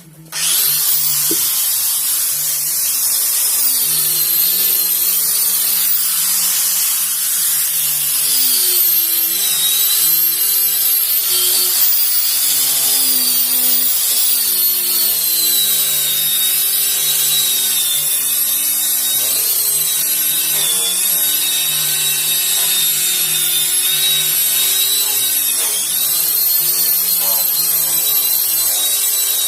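Electric sanding machine switched on and running against wood, a steady motor whine with gritty rubbing as it sands.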